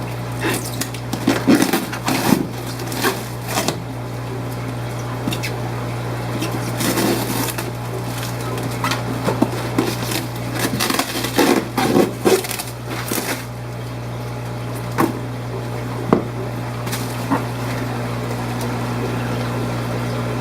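A steady low hum runs under scattered knocks, clicks and rustles of shipping bags and tubs being handled, busiest in the first half and sparser toward the end.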